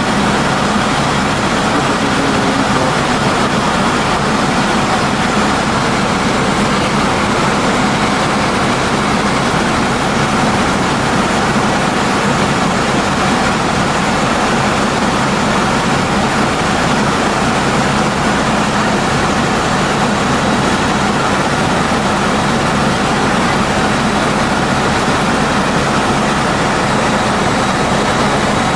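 Helicopter cabin noise: the engine and rotor's steady drone, with several constant hums underneath, heard from inside the cabin.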